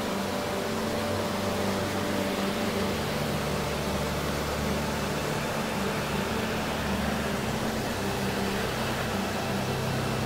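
Creek swollen with spring rain rushing over rocks: a steady whitewater noise.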